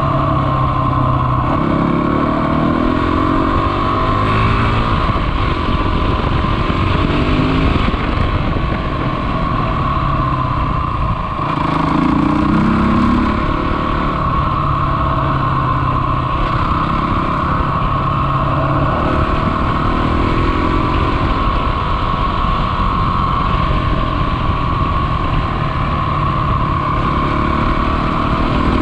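Honda CRF250 dirt bike's single-cylinder four-stroke engine running under way, its pitch climbing several times as it accelerates, with a brief drop in level about eleven seconds in before it picks up again.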